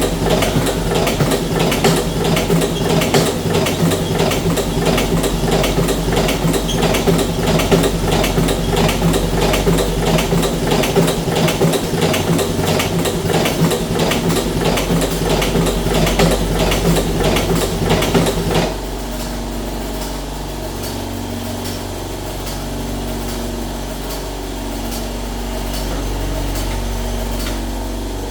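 Electric cigarette filling machine running: a motor hum under rapid, regular mechanical clicking. About two-thirds of the way through the clicking stops abruptly, leaving only a quieter steady motor hum.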